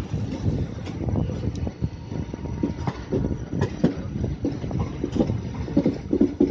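Wheels of the 17038 Hisar–Secunderabad Express clattering over rail joints and points as the train rolls in, heard from aboard the coach: an irregular run of knocks over a steady rumble.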